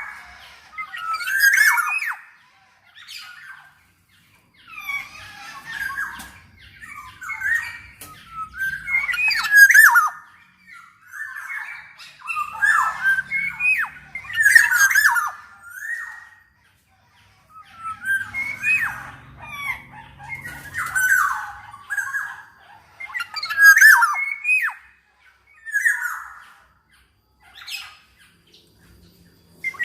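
Black-naped oriole (kepodang) calling in a rapid series of phrases, about one every second or two. The phrases mix gliding whistled notes with harsh, raspy squawking calls.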